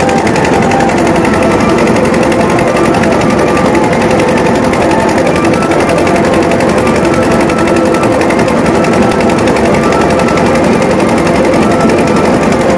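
Tasha drums played in a fast, unbroken roll, loud over the noise of a large crowd.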